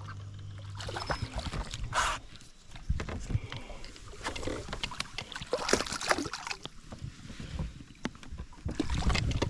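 Sounds aboard a small fishing boat: a steady low hum stops about a second in, followed by scattered knocks, clicks and rustling.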